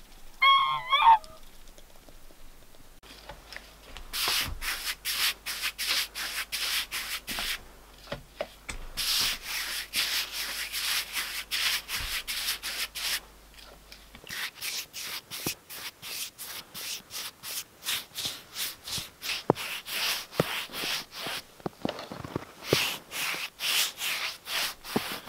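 A brief bird call about half a second in. Then a paintbrush scrubs wood antiseptic onto a sawn board in quick back-and-forth strokes, in runs broken by short pauses.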